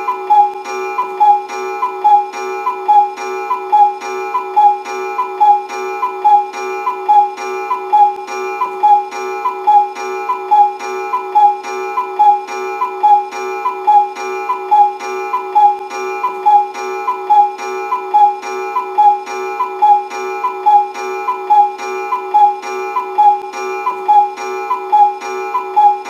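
Cuckoo clock sound effect looping: an even, repeating pattern about once a second over steady tones, the same all the way through.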